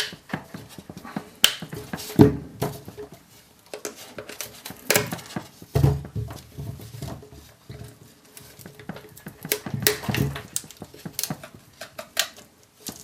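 Tools prying and knocking at the hard plastic case of a laptop battery pack: irregular clicks, scrapes and knocks, with heavier bursts about two, five to six and ten seconds in, as the sealed case resists opening.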